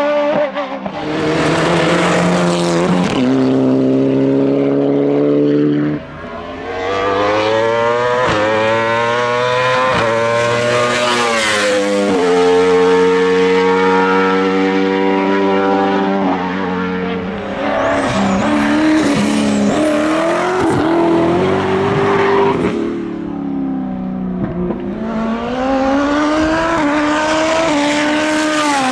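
Hillclimb sports-prototype race car engine at high revs, accelerating hard with its pitch climbing and then dropping at each gear change. The engine lifts off briefly about six seconds in and again near the end.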